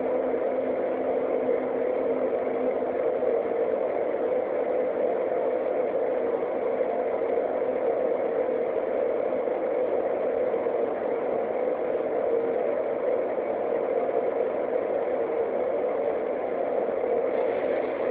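Steady mechanical hum with a few held low tones, unchanging throughout, like a motor or engine running at idle.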